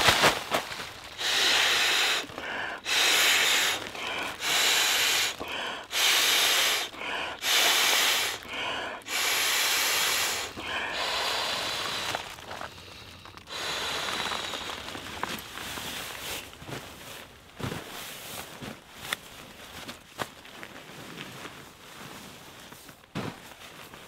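Inflatable sleeping pad being blown up: a rhythmic series of about eight strong rushes of air, one every second or so, ending after about twelve seconds. Softer rustling of nylon pad and ground sheet follows.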